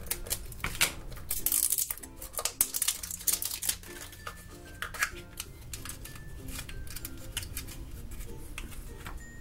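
Scissors snipping through a foil seal on a small plastic capsule, with sharp clicks and crackling as the plastic and foil are handled, densest in the first few seconds. Background music plays under it.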